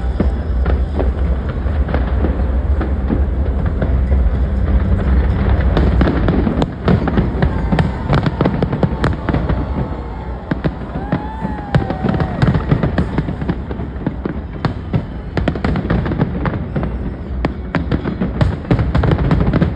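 Aerial fireworks going off in a rapid, dense barrage of bangs and crackling pops. A heavy low rumble of booms carries through the first six seconds or so, then thins out to sharper cracks and crackles.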